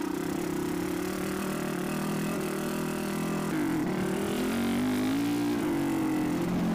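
Dual-sport motorcycle engine running under way on a rocky trail. From about halfway on, its pitch dips and recovers a few times as the throttle changes.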